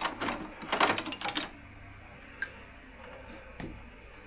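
Clicking and rustling of hands handling motorcycle wiring and plastic connector parts: a dense run of clicks at first, then a few single clicks.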